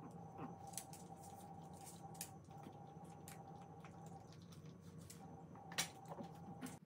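Faint small clicks and smacks from a pug nibbling and licking at a person's hand, with one sharper click near the end, over a steady low hum.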